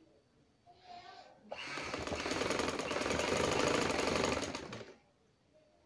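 Sewing machine stitching a run of about three seconds, a fast, even clatter of needle strokes that starts about a second and a half in and stops near the end, sewing a line over earlier stitching on a garment's neck band.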